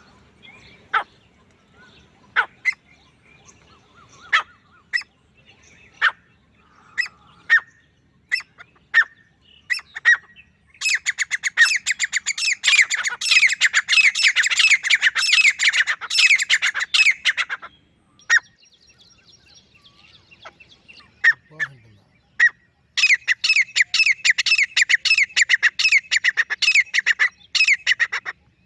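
Male grey francolin calling: loud, sharp single notes about a second apart, then two long runs of rapid, tightly repeated call notes with a few separate notes between them.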